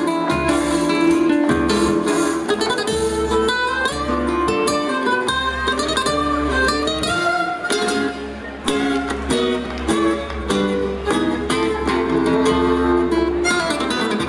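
Flamenco music led by strummed acoustic guitar, with sharp percussive strikes keeping the rhythm.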